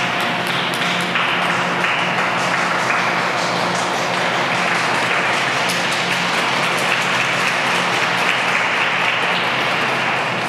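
Audience applauding in an ice rink arena: a steady, dense wash of clapping.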